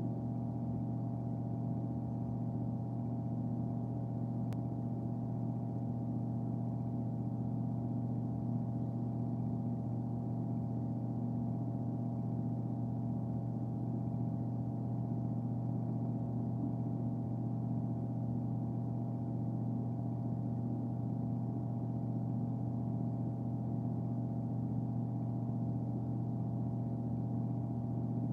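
2015 NuTone 696N bathroom exhaust fan motor running steadily: a constant electric hum with a strong low drone and a row of fainter, higher tones above it.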